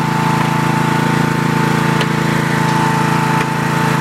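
Riding lawn mower's engine running at a steady speed, with a steady high whine over it.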